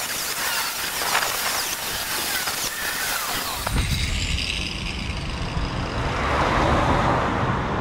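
Corded angle grinder grinding the cut end of an exhaust pipe clean, a steady high grinding hiss. About halfway through, the sound shifts to a lower rumble with less hiss. The grinding leaves the pipe too hot to touch.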